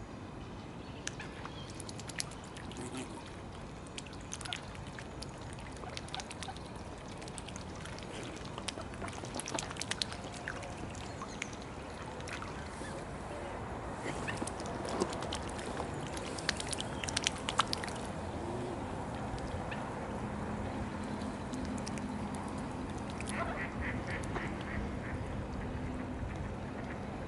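Mallards quacking, with a short run of quacks near the end, over small splashes and clicks of water at the pond's edge as mute swans dabble near the bank.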